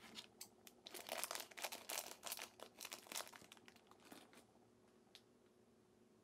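Thin clear plastic bag crinkling as it is opened and a small plastic toy figure is pulled out, a dense run of crackles that stops about four and a half seconds in.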